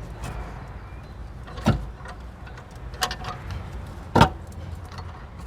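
Three sharp metallic knocks about a second apart, the last the loudest, from hand tools and parts during work on a car's rear suspension, over a steady low rumble.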